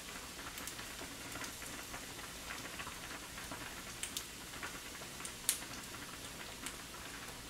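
Chopsticks clicking now and then against a plastic container and a ceramic side dish as kimchi is served out, the sharpest click about five and a half seconds in, over a faint steady hiss.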